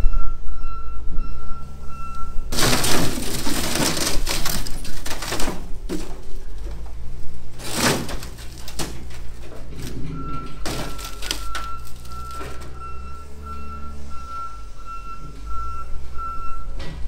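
Case wheel loader's diesel engine running while its pallet forks crush the roof of an old car: a dense crunch of folding sheet metal and breaking glass from about two and a half to five and a half seconds in, with sharp metal impacts near six and eight seconds. The loader's backup alarm beeps about twice a second at the start and again through the last seven seconds as it reverses.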